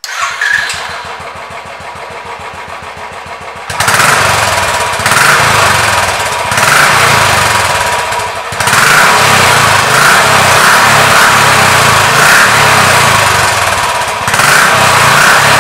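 Royal Enfield BS3 single-cylinder motorcycle running with its exhaust note, steady at first. From about four seconds in it gets much louder and stays loud, swelling and dipping every second or two.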